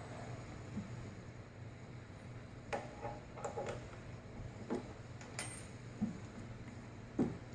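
Scattered light metallic clicks and knocks, about six spread over several seconds with the last the loudest, from hand tools and a tap being handled as a thread is started in a drilled aluminium hole. A steady low hum runs underneath.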